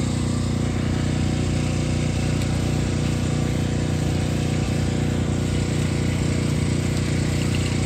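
Small engine running at a steady speed, with no revving up or down.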